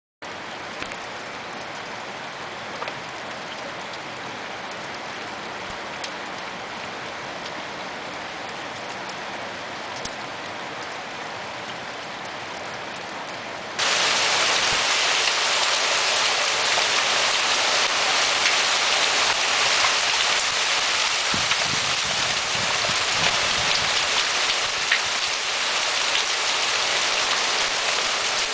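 Steady heavy rain mixed with small hail falling. About halfway through it jumps much louder and stays there: rain and hailstones hitting stone paving.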